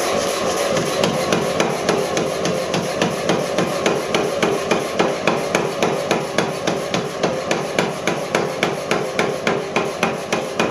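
Power hammer forging a red-hot spring-steel sword blade: a fast, even run of blows, about three or four a second, over the steady running of the machine.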